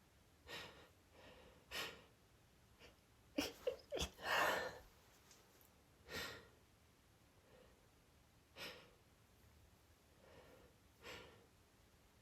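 A woman's hitching gasps as she tries to hold back a sneeze brought on by pine-scented candles. About three and a half seconds in come three quick sharp catches, then a loud half-stifled burst, the loudest sound. Short shaky breaths follow every couple of seconds.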